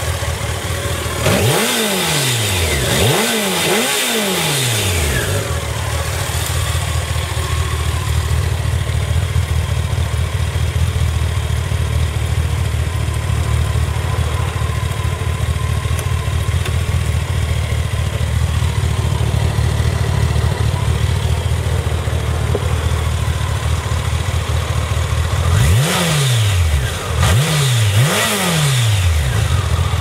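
Honda CBR1100XX Super Blackbird's inline-four engine idling steadily. It is blipped three times in quick succession in the first few seconds and three more times near the end, the revs rising sharply and dropping back to idle each time.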